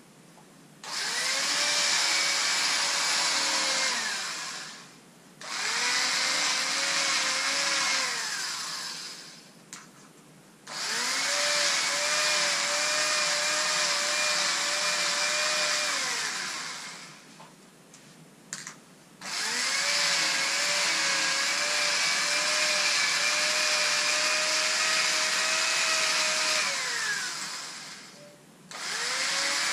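Handheld electric fabric cutter's motor running in four long bursts as it cuts through stretch lycra, each run spinning up to a steady whine and winding down, with short pauses between. A fifth run starts near the end.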